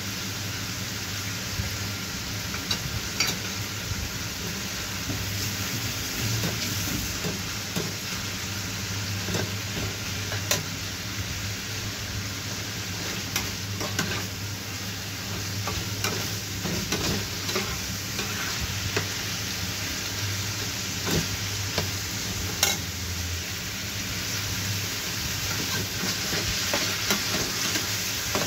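Beef, onion and bell pepper stir-frying in a frying pan: steady sizzling, with the spatula scraping and tapping against the pan again and again as the food is stirred. A low hum underneath stops about two-thirds of the way through.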